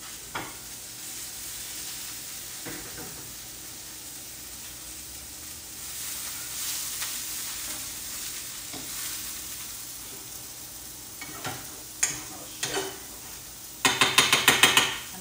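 Food sizzling as it fries in a pan, with a few single knocks of a utensil, then near the end a quick run of scraping strokes as the food is stirred around the pan.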